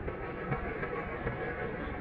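Custom-made scary monster sound effect: a steady, rumbling, noisy drone with no breaks.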